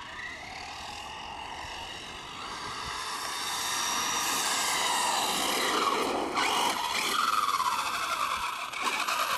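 Brushless electric motor whine of a 1/5-scale RC monster truck with a Castle Creations Mamba Monster 2200kv system on a 4-cell LiPo, rising and falling in pitch with the throttle, along with tyre noise. It grows louder from about three seconds in as the truck comes back toward the microphone at speed.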